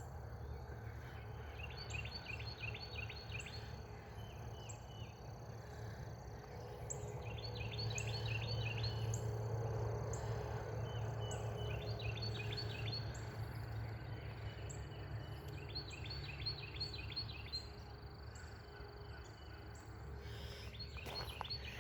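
Songbirds singing in the open: one bird repeats a quick run of chirps every four or five seconds, over fainter high repeated chirps. A low rumble swells in the middle and fades again.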